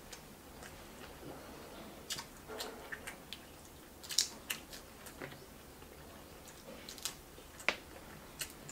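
Red king crab leg shell cracking and snapping as it is broken apart by hand, heard as irregular sharp clicks a second or so apart, with some chewing between them.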